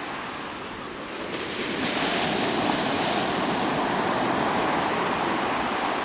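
Ocean surf: the rush of breaking waves, swelling louder between one and two seconds in and then holding steady.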